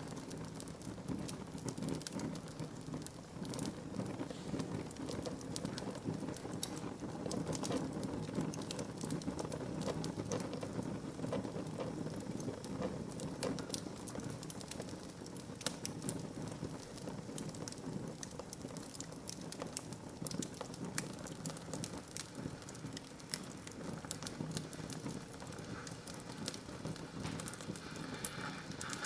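Wood fire burning in a fireplace: a steady low rush of flames with frequent small sharp crackles and pops from the burning logs.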